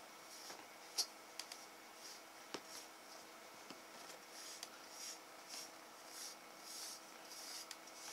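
A bristle brush stroked repeatedly through a kitten's fur: a run of soft swishes, with a couple of sharp clicks, the loudest about a second in.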